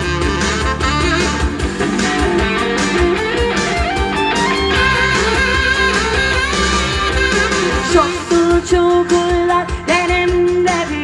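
Pop song with guitar to the fore over a steady beat, in a passage between the sung lines.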